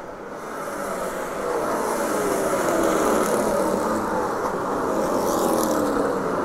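Race cars running laps on a short oval track, several engines at once with their pitches sliding up and down as they pass; the sound grows louder about a second and a half in.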